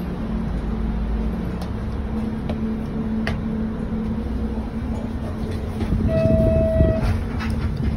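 Inside a city bus cabin: the engine's steady low rumble with a few sharp clicks and rattles. A single clear beep, about a second long, sounds about six seconds in.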